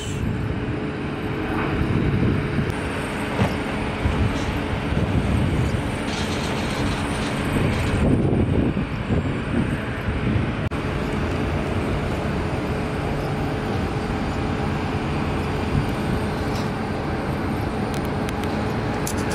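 Airport noise of jet aircraft and apron machinery: a steady, mostly low rumble with a constant hum running through it. It swells briefly about eight seconds in.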